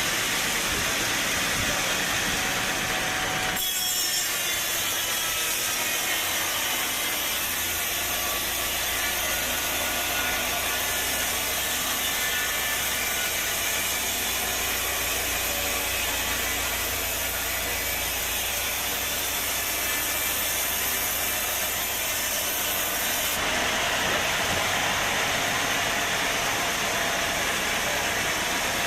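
Sawmill saw cutting through a teak log: a steady sawing noise starts suddenly about three and a half seconds in and stops about five seconds before the end, with the mill's machinery running steadily before and after.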